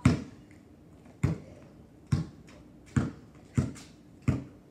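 Basketball bouncing on a concrete driveway while being dribbled: six sharp bounces, about a second apart at first and coming a little faster near the end.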